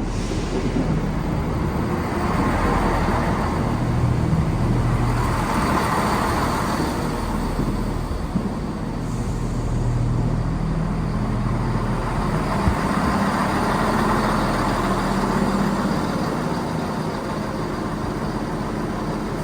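A diesel train running, with a steady low engine hum and a rumbling noise that swells and eases several times.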